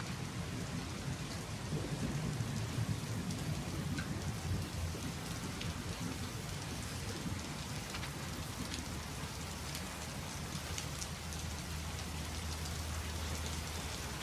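Heavy rain falling steadily and pattering on the ground, with a low rumble underneath that sits like distant thunder.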